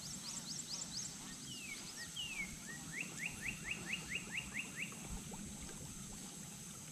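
Wild songbirds singing: a quick run of high rising chirps, then two falling slurred whistles and a series of about nine rising whistled notes, about four or five a second, over a steady high hiss.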